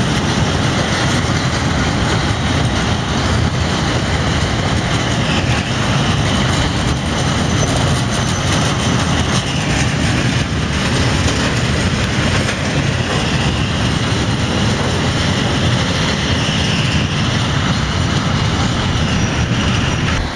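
Freight train of covered hopper wagons rolling past: a steady, loud rumble of the wagons, with a faint high wheel squeal that comes and goes.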